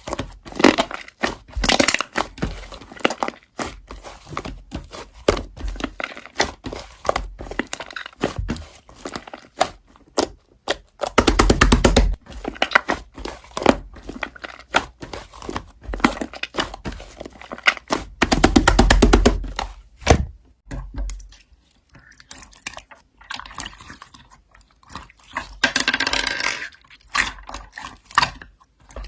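Slime being squeezed and worked by hand: a steady run of crackling, crunching and popping sounds, thicker in two stretches around eleven and eighteen seconds in.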